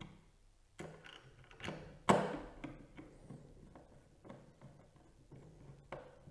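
Scattered clicks and taps of a magnetic screwdriver seating in and turning the screws that fix a CPU cooler's mounting bracket to the motherboard, with one louder clack about two seconds in.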